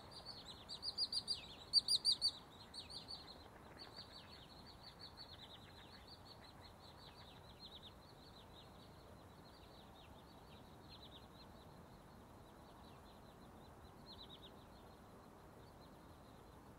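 Rapid run of high, short, downward-sweeping bird chirps, loudest in the first few seconds, then thinning out and fading away.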